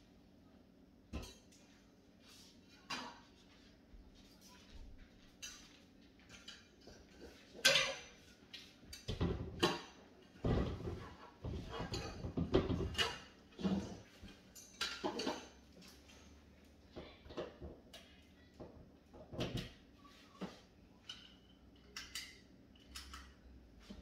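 Household objects being handled and set down: a run of irregular knocks, clinks and rustles, busiest and loudest in the middle.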